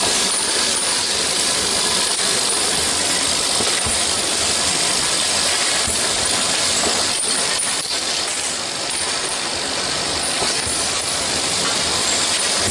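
Automatic syrup filling and capping machine line running, a steady mechanical hiss and hum with many light clicks and clinks throughout.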